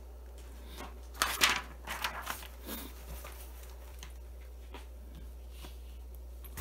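Hands handling electronic parts and a breadboard on a workbench. A few short rustling, scraping bursts come about a second in and over the next two seconds, then a few faint clicks, over a steady low hum.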